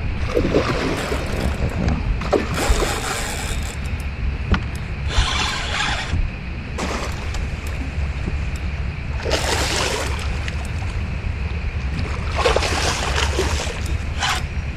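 Water splashing in about five short bursts as a hooked fish thrashes at the surface during the fight, over a steady low rumble of wind on the microphone.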